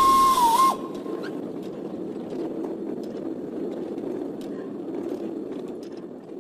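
A steam whistle sounding with a loud hiss of steam, its pitch dipping just before it stops less than a second in; then a steady low rumble that fades toward the end.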